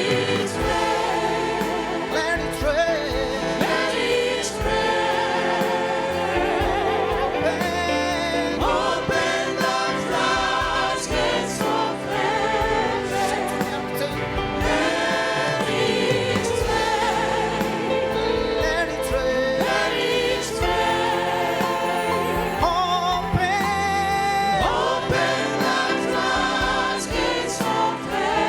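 Choir singing a gospel song with instrumental backing and a steady beat.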